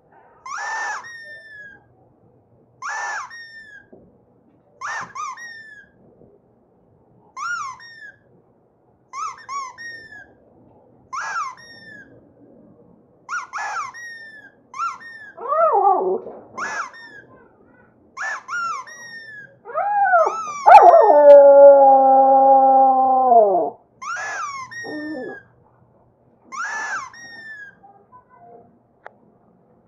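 Dog whining in short, high cries that fall in pitch, about one every two seconds, then a long howl of about three seconds partway through that drops off at its end.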